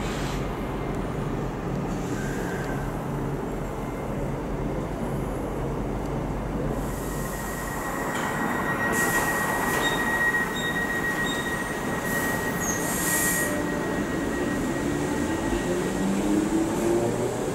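Merseyrail Class 777 electric multiple unit running into the platform and slowing to a stand, over a steady rumble. A thin, steady high whine sets in after about seven seconds, and near the end the train's electrical tones rise in pitch.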